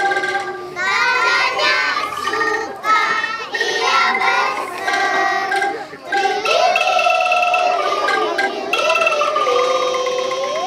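Children's choir singing an Indonesian children's song in unison, accompanied by angklung, the shaken bamboo rattles holding steady pitched notes under the voices.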